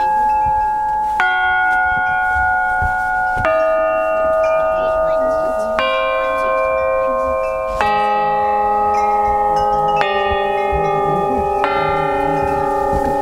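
A set of chakra-tuned sound-therapy chime plates struck one after another with a mallet, six times, each strike a different ringing note. The notes sustain and overlap into a bell-like wash. The plates are tuned to the reference frequencies assigned to the chakras.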